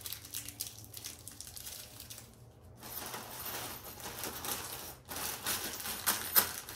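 A small clear plastic hardware bag rustling and crinkling in the hands in irregular bursts. There is a brief pause about two and a half seconds in, and the crinkling is loudest near the end.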